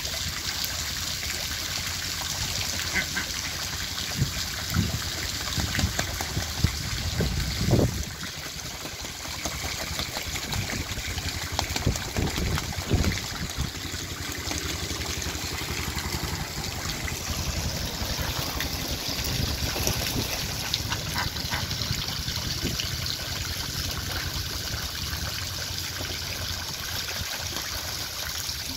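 Water splashing and trickling as white domestic ducks bathe in a shallow pool, dipping and flapping, over a steady run of water. Several louder bursts of splashing come in the first half.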